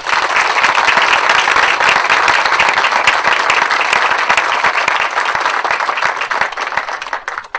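Audience applauding: many people clapping at once in a dense, steady patter that dies away near the end.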